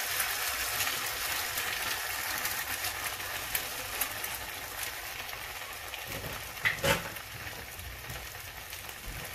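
An egg frying in hot oil in a nonstick pan, a steady crackling sizzle that slowly fades, with a short knock about seven seconds in.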